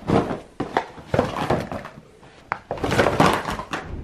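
A paper gift bag being rummaged and emptied, small cardboard cosmetics boxes tumbling out onto the bed: irregular rustling with soft knocks and one sharp click, loudest about three seconds in.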